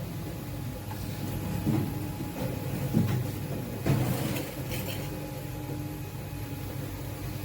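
Steady hum of apple-mill machinery with a few knocks and clatters over it, the sharpest about three and four seconds in.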